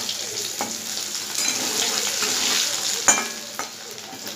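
Boiled potatoes sizzling in hot mustard oil in a kadhai while a spatula stirs them, knocking sharply against the pan twice. The sizzle eases off near the end.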